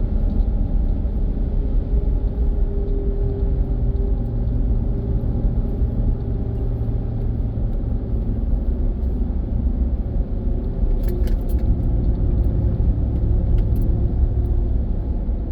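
Pickup truck driving on a road: a steady low rumble of engine and tires, with a few light clicks about two-thirds of the way through.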